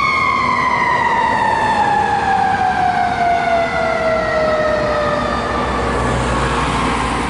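Fire engine siren winding down: one long falling pitch that slides from a high tone to about half its pitch over some five seconds and fades out, with the truck's low engine rumble underneath near the end.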